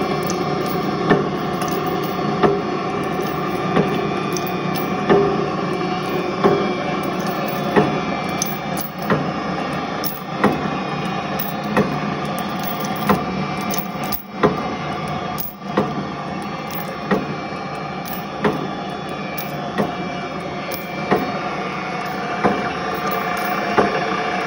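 Vaughn stringer pointer, a wire-drawing machine, running with its grooved pointing rolls turning: a steady mechanical drone with a sharp knock about every 1.3 seconds.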